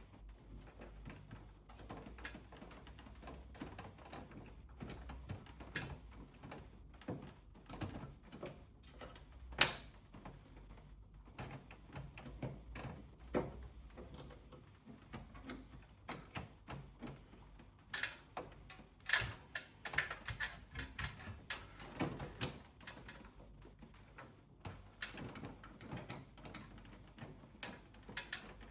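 Irregular light clicks, taps and knocks of plastic parts being handled and unclipped on an air conditioner's indoor unit during disassembly, with one sharper knock about ten seconds in and a busier run of clicks near the two-thirds mark.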